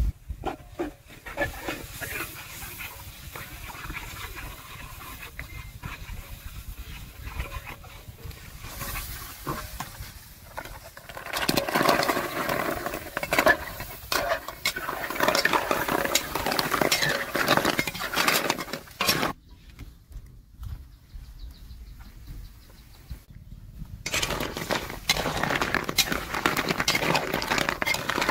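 Metal spatula stirring and scraping in a large aluminium wok, first through sauce, then through a load of snails whose shells clatter and clink against the pan and each other. The clattering is dense, with a quieter lull in the stirring partway through.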